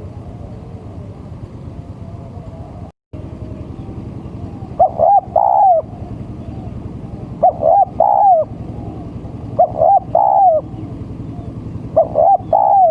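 Spotted dove (tekukur) cooing: four repeated phrases, each two short coos followed by a longer drawn-out coo, over a steady low hum. It is a male's call used as a lure to draw in other doves.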